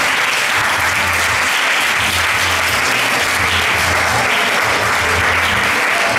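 Audience applauding, steady clapping throughout.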